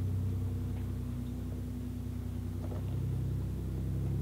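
Engine of an overland 4x4 truck running at low speed as it drives along a rocky dirt trail: a steady low drone with a few faint clicks, growing a little louder near the end as the truck comes close.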